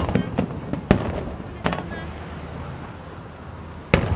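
Aerial fireworks shells bursting in a display: sharp bangs about a second apart, then a quieter stretch of rumble, and a loud bang near the end followed by a quick run of smaller cracks.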